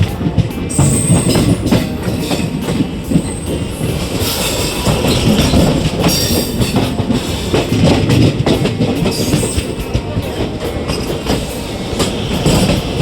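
ICF passenger coaches of a running train, wheels clattering over rail joints in a dense, steady rumble with frequent sharp clicks and a faint high wheel squeal now and then.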